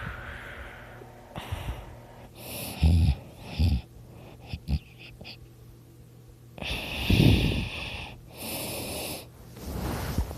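Snoring in sleep: a series of slow, noisy breaths in and out, a second or two apart, several with a low rattling snore, the loudest about seven seconds in.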